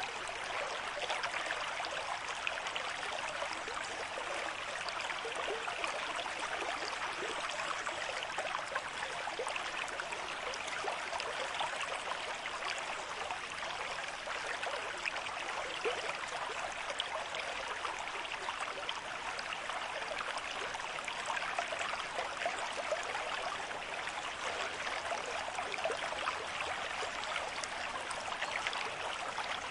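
River stream with moderate flow running over stones, a steady rushing with fine splashing and trickling.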